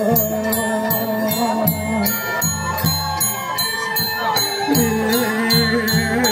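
Traditional Balinese music: quick, regular metallic jingling strokes, about three a second, over low rhythmic pulses and a held, wavering melody line.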